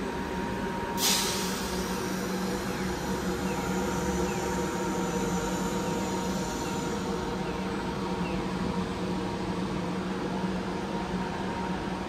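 Street traffic with a steady hum of vehicle engines. About a second in, a sharp burst of hissing air, like a bus's air brakes releasing, trails off over several seconds.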